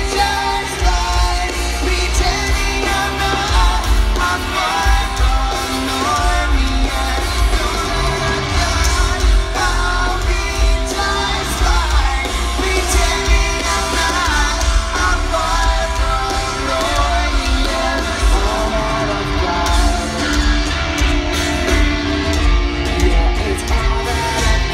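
Loud live rock band playing through an outdoor festival sound system: a sung vocal line over electric guitars, with heavy bass and drums.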